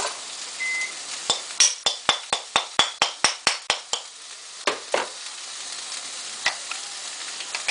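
Carrots and hamburger sizzling in a stir-fry pan. From about a second in comes a quick, evenly spaced run of about a dozen sharp clicks, some four to five a second, followed by a few scattered knocks.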